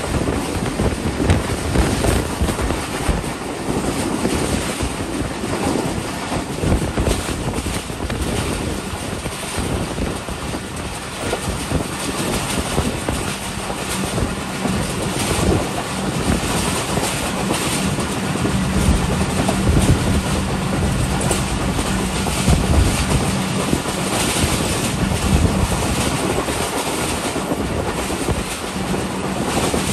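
A train running on the rails, heard from aboard the moving train: a steady rushing noise with the clatter of wheels over the track throughout, and a low steady hum joining about halfway through.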